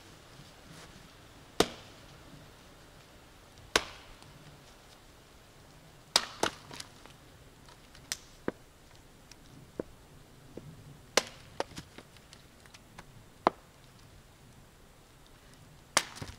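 Viking axe chopping into wood, splitting a stump for firewood: about seven heavy blows roughly two seconds apart, with lighter knocks between them.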